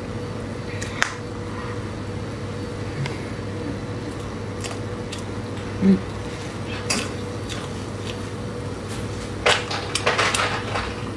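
Quiet eating sounds from a mouthful of soft matcha mille crepe cake: scattered small mouth and spoon clicks, a short hummed "mm" about halfway, then a quick cluster of metal spoon clicks and scrapes near the end as the next spoonful is taken. A steady low hum runs underneath.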